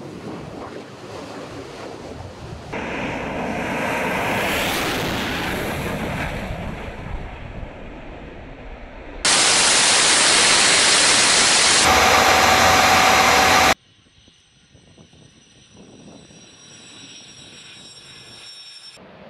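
Military jet engine noise in several edited segments. A jet's rush swells and fades as it goes by, then a loud steady rush of jet and airflow noise cuts off suddenly about fourteen seconds in. It gives way to quieter engine running with a thin high whine.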